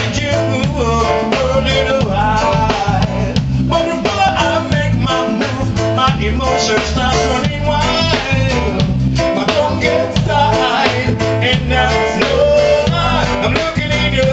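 Live band music: a man singing into a microphone, backed by keyboard and drums.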